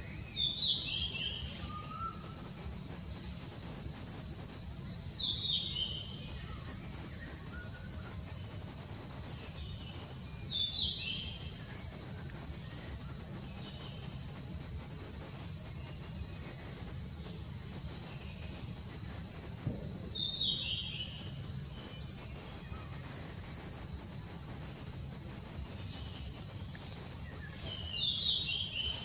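Forest ambience: a steady high-pitched insect drone, with a bird calling five times over it. Each call is a quick falling run of high notes lasting about a second.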